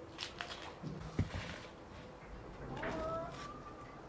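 Knife peeling dry onions by hand: small clicks and crackles of onion skin, with a sharp knock about a second in. A brief voice-like sound comes near three seconds in.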